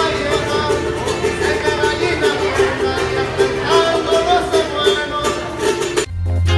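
A man singing while strumming a small acoustic guitar. Just before the end it cuts suddenly to a different music track with a heavy bass beat.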